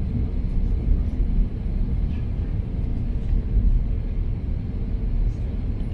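Steady low rumble of a jet airliner's engines and airflow heard from inside the passenger cabin during the approach to landing.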